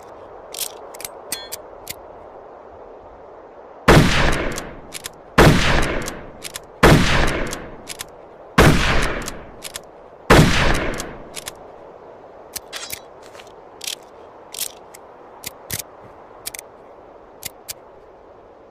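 Mosin-Nagant M91/30 bolt-action rifle in 7.62×54mmR firing five shots about a second and a half apart, each report trailing off in a long echo. Short sharp clicks come before, between and after the shots.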